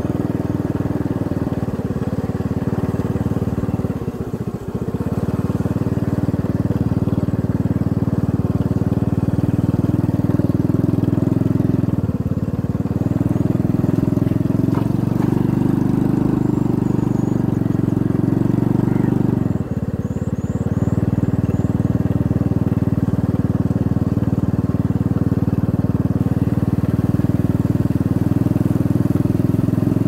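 Motorcycle engine running steadily under way, its note briefly dropping twice, about four and a half and nineteen and a half seconds in.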